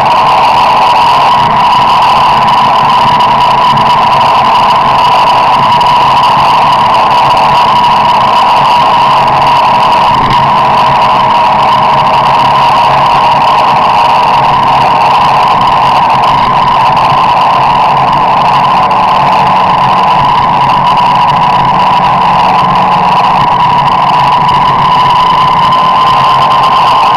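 Vehicle driving on a highway, heard from inside the cab: a loud, steady high whine over a low engine hum, its pitch edging up slightly near the end.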